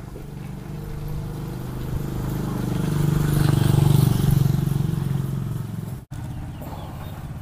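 A motor vehicle's engine running, growing louder to a peak about four seconds in and then fading, as a vehicle passing by would. The sound cuts out for an instant just after six seconds.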